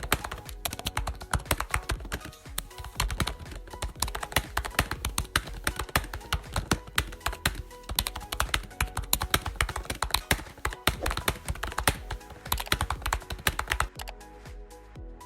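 Rapid computer keyboard typing, a dense run of key clicks that thins out and stops near the end.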